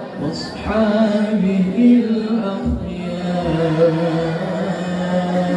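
A man's solo voice chanting Arabic in the melodic tilawah style into a handheld microphone, with long held, wavering notes and short pauses for breath near the start and about three seconds in.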